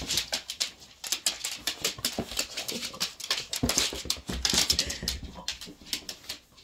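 A small dog scrambling after a ball on a hard laminate floor: a rapid, irregular clicking and scuffling of claws and ball.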